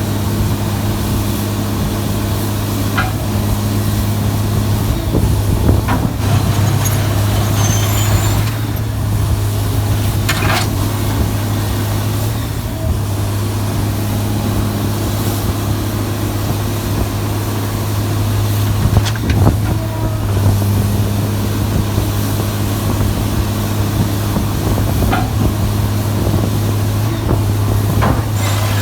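Sierra 656SL metal shear baler running: a steady low machine hum, with a few sharp metal clanks now and then.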